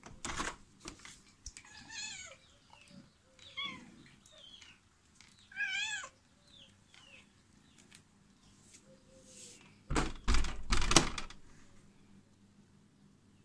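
Cats meowing, three clear wavering meows and a few fainter ones, after a click and clatter of a door handle being turned at the start. A few loud thuds come about ten seconds in.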